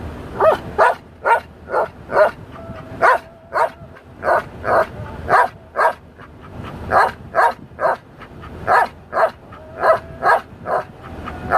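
Belgian Malinois 'singing': a rhythmic run of short, yelping howls, about two a second, with a brief pause near the middle.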